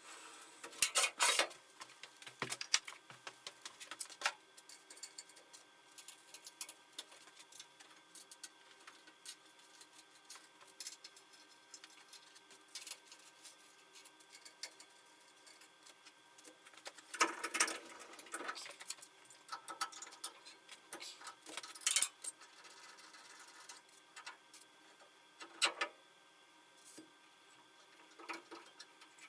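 Quiet, irregular light clicks and taps of small hard objects being handled, with a few short, louder scrapes about a second in, around seventeen seconds and near twenty-six seconds.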